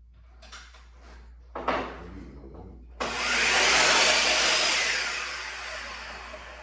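Electric power saw switched on suddenly about three seconds in, running loud and then winding down gradually, after a sharp knock of wood about a second and a half in.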